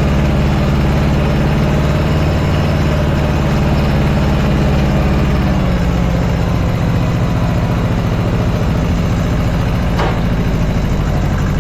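Tractor engine running at a steady idle, its tone shifting slightly about halfway through, with a faint click near the end.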